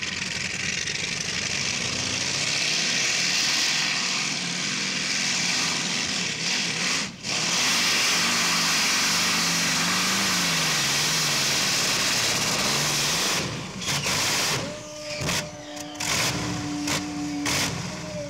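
Modified pulling tractor's engine running flat out under load during a pull, a loud steady roar. About thirteen seconds in it cuts back and turns choppy, with a steady tone sounding for a few seconds near the end.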